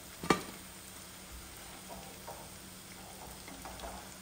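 Coconut oil sizzling steadily in a frying pan where semolina-coated jackfruit slices are frying, with one sharp click about a third of a second in.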